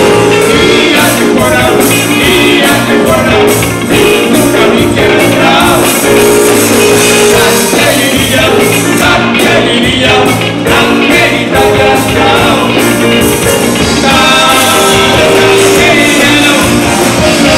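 Live band playing an old Malagasy popular song: electric guitar, bass guitar and drum kit behind two male singers.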